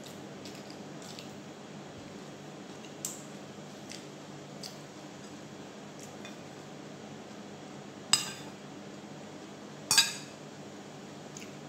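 Cutlery clinking against dishes at a meal table: a few light taps, then two sharp clinks with a short ring, about eight and ten seconds in.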